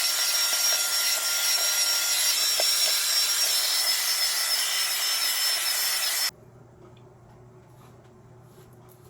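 Handheld hair blow dryer running steadily with a thin high whine, switched off about six seconds in. A faint low hum follows.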